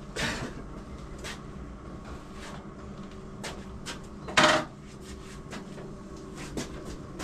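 Clunks and knocks as a motorcycle is wheeled by hand across a concrete floor, with scattered light clicks and one loud clunk about four and a half seconds in, over a steady low hum.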